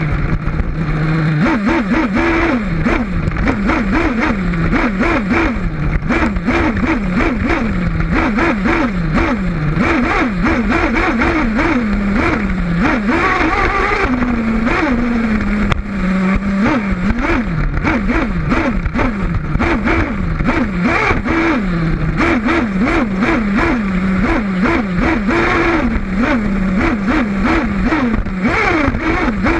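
Kyosho Inferno Neo 1/8-scale nitro buggy's small glow engine, recorded onboard, revving up and down over and over, about once a second, as it is throttled around a dirt track. Steady rattle and clatter from the chassis and tyres on loose dirt runs underneath.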